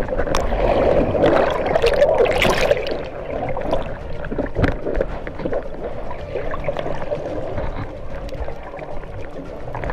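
Underwater churning of rough surf heard through a camera housing: waves breaking overhead and bubbles rushing, with scattered sharp pops. It is loudest in the first few seconds, then settles to a steady turbulent wash.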